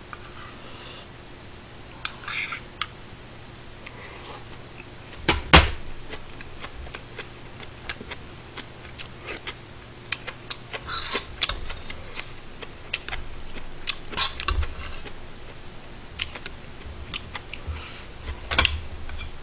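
Metal spoon clicking and scraping against a stainless steel bowl and a cooking pot during eating, in scattered taps with one sharp clink about five and a half seconds in, and chewing between.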